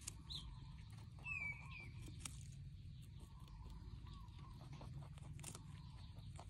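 A rabbit chewing a raw baby corn cob: faint crisp crunches and small tearing bites over a low steady rumble. A short high chirp comes about a second in.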